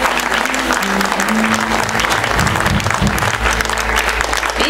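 Audience applauding, with a few low plucked notes from the upright bass and guitar underneath.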